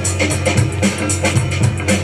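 DJ-played breaking music with a steady drum beat and bass line.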